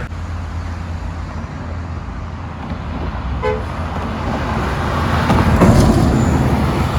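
Road traffic rumbling, with a large vehicle, likely a bus, approaching and passing close, loudest about six seconds in. About halfway through comes one short horn beep, not a musical telolet horn.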